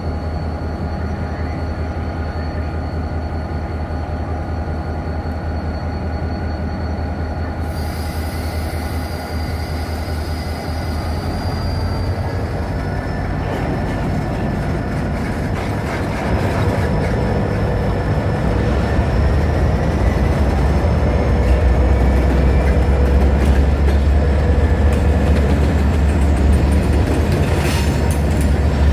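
SRY Rail Link EMD diesel locomotives running, their engines a steady low rumble, with thin high wheel squeals gliding over it. The sound grows louder in the second half as the locomotives work along the track.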